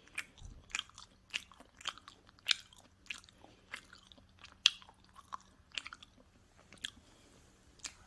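Close-miked chewing of pizza: a run of crunchy crackles, roughly one or two a second, the loudest a little past the middle and a pause near the end.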